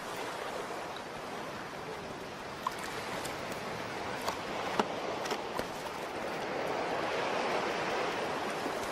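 Surf washing up a sandy beach: a steady hiss of breaking waves that swells a little toward the end, with a few faint ticks in the middle.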